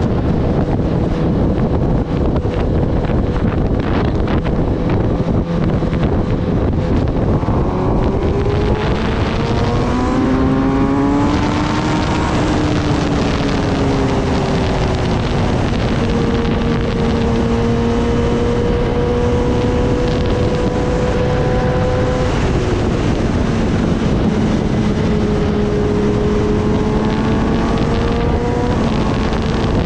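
Kawasaki Ninja ZX-10R inline-four engine running at road speed under heavy wind noise on the microphone. Its pitch climbs for a few seconds as it accelerates, eases back, holds steady, then drops and climbs again near the end.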